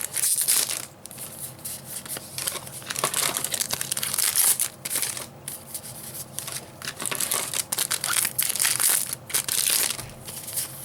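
Foil trading-card booster-pack wrappers crinkling and being torn open, in quick irregular rustling bursts.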